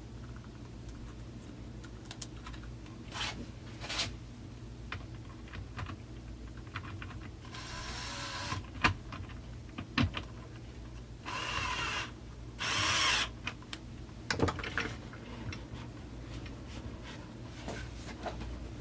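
Hand work on a chainsaw's handle screws: scattered clicks and knocks of tools and parts, with three short scraping bursts around the middle as the screws are worked into place.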